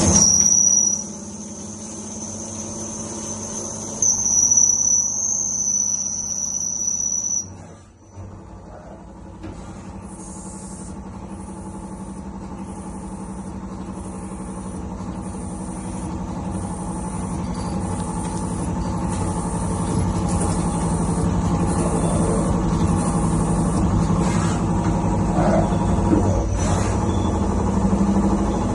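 CNC lathe machining a ½-inch reducing bushing: the machine runs with a high-pitched whine while cutting, which stops about seven seconds in, then the running noise builds back up steadily.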